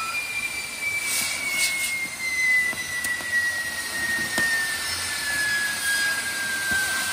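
Castillo fireworks tower burning: spark fountains hiss steadily, with a whistle that falls slowly in pitch and a few crackles and pops.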